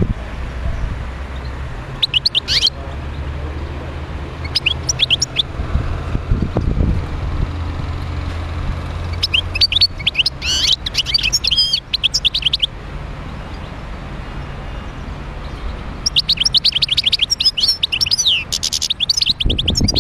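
European goldfinch singing its twittering song: two short bursts, then a longer phrase, then a long, dense run of song near the end. A low steady hum lies under the first part.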